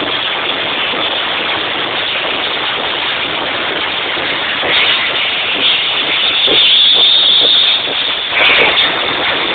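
Loud electronic dance music in a nightclub, recorded on an overloaded phone microphone so that it blurs into dense, distorted noise with no clear beat.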